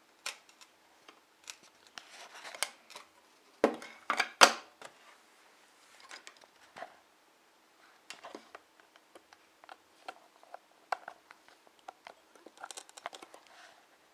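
Scattered clicks and small plastic knocks of handling an external hard drive and plugging its USB cable back in, with a louder cluster of knocks about four seconds in.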